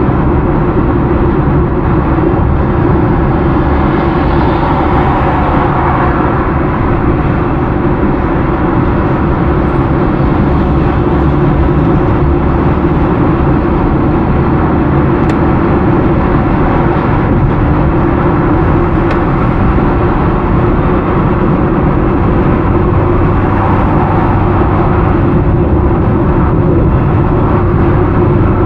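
Steady road noise inside a car cruising on a highway: tyre and engine rumble.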